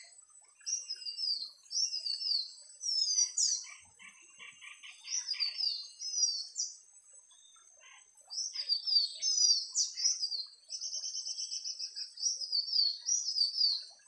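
Iora (cipoh jantung) song: short, quick, falling whistled phrases repeated again and again. A lower chatter comes about four seconds in, and a fast even trill about eleven seconds in.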